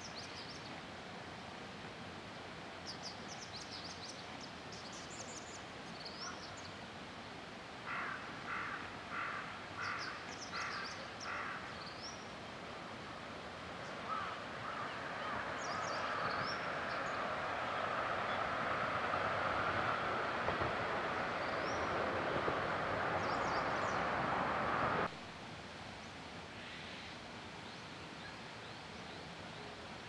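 Birds calling: thin, high chirps scattered throughout, and a quick run of about six harsh, caw-like calls a little before the middle. A rushing noise builds through the second half, becomes the loudest sound, then cuts off sharply.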